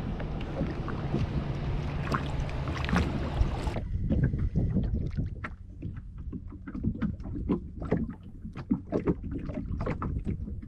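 Water lapping and splashing against a kayak hull, with wind on the microphone for the first few seconds. About four seconds in the sound changes abruptly to a quieter bed of small irregular splashes, drips and knocks against the boat.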